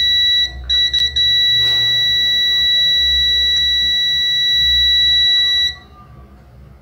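Digital multimeter's continuity buzzer giving a steady high beep, stuttering briefly a little under a second in, while the probes read about 1.7 ohms across the laptop graphics card's rail. The resistance is low enough to be a suspected short, though it is not taken as proof of one. The beep cuts off cleanly about six seconds in as the reading goes to open.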